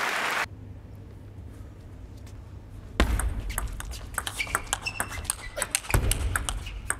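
Applause cuts off about half a second in. About three seconds in a table tennis rally begins: the celluloid ball clicks sharply off the rackets and table in quick, irregular succession, with short high pings.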